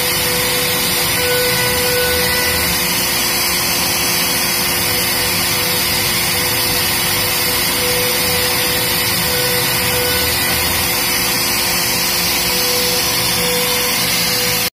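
A CNC router spindle running at 30,000 RPM gives a steady whine while a 1/4-inch two-flute down-cut bit cuts a 3 mm deep pass through a wooden sheet at 3000 mm/min. Dust-extraction suction through the shroud hose adds a steady rushing noise.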